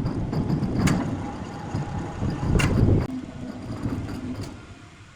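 Low mechanical rumble of a heavy engine or machine running, with two sharp knocks, about one second and two and a half seconds in. The rumble fades away near the end.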